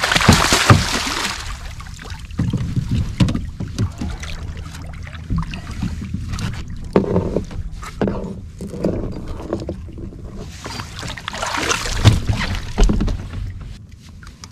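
A hooked catfish splashing hard at the surface beside a kayak as it is brought in. Then come scattered knocks and rustling as it is handled into the boat, and another burst of thrashing and thumps near the end.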